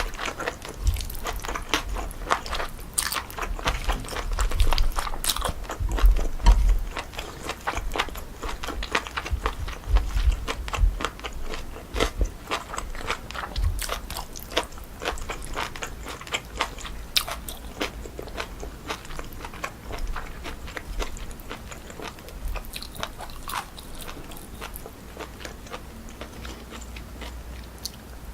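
Close-miked chewing of cold pork feet and jellyfish salad, a run of crisp crunches and wet clicks that comes thick at first and thins out toward the end.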